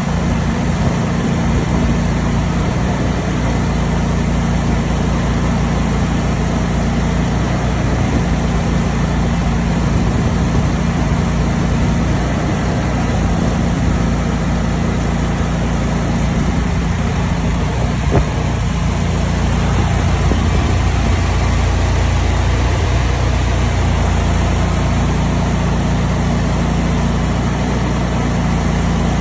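A machine running steadily with a low, even drone.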